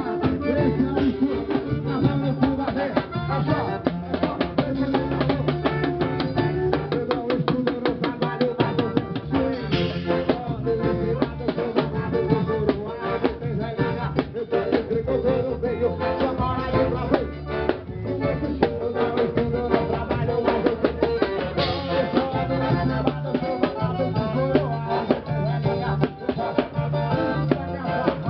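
Forró band music with a drum kit keeping a fast, steady beat over low bass notes, with no lead vocal in this stretch.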